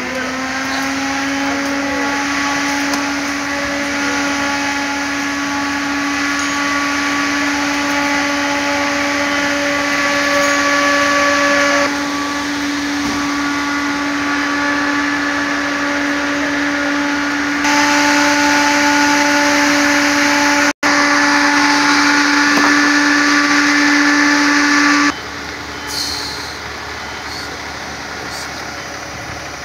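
A motor winds up to speed and runs with a loud, steady whine, then stops abruptly a few seconds before the end.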